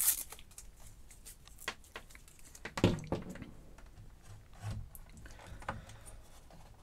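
Hands handling a coiled mains cable and a computer power supply's case: rustling and scattered light clicks, with one louder knock about three seconds in.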